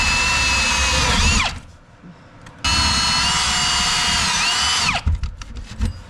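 Milwaukee Fuel Hole Hawg right-angle drill cutting a round hole through the wooden rim board in two long runs. Each run ends with the motor's whine falling as it winds down. A few sharp knocks come near the end.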